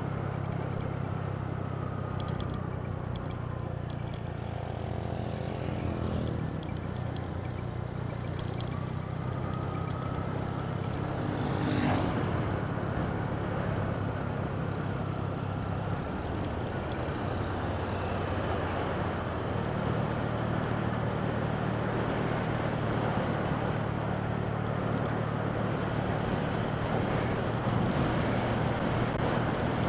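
Motorcycle engine running steadily while riding, with wind and road noise. The engine note drops off a little past halfway and picks back up a couple of seconds later, and there is one sharp click near the middle.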